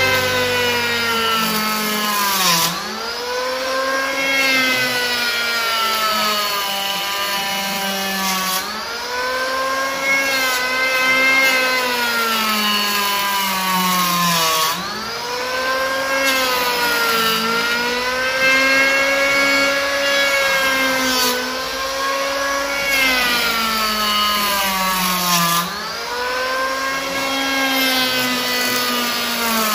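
Makita N1900B 82 mm electric hand planer running and cutting wood in repeated passes. Its motor whine sags in pitch and then dips sharply and recovers about every six seconds.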